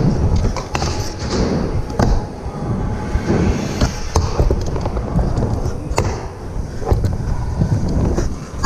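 Pro scooter riding on skatepark ramps: a steady low rumble of the wheels rolling on the ramp surface, broken by several sharp clacks of the deck and wheels hitting coping and landing.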